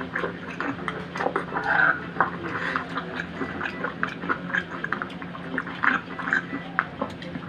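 Eating cooked crab by hand, close to the microphone: shell pieces picked and pulled apart, with wet chewing and sucking. It is heard as a run of many small crackling clicks and smacks.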